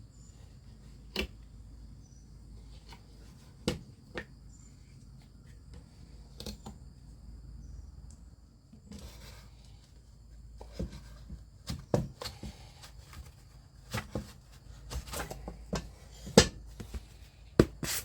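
A pocket knife working at an old picture frame to take it apart: scattered sharp clicks and knocks, the loudest near the end, with a stretch of scraping about nine seconds in.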